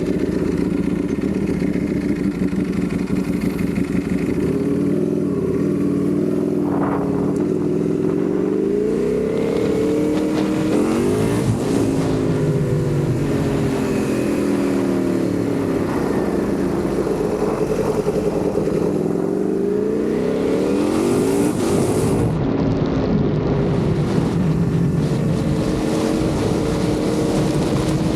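Ducati Panigale V4 engine under way, its revs rising and falling again and again as the bike speeds up and slows.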